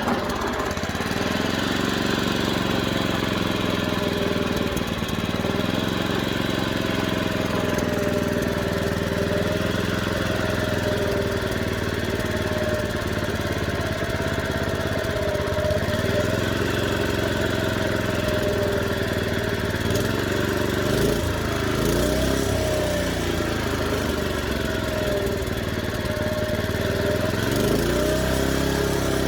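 Honda push mower's small single-cylinder four-stroke engine running steadily, its speed dipping and picking back up several times. The uneven running fits a carburettor that needs a little adjustment to get the engine's full potential.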